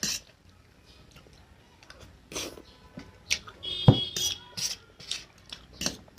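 Close-miked eating sounds from Maggi instant noodles and fried egg: wet mouth clicks and chewing at irregular intervals, with a louder, brief burst about four seconds in.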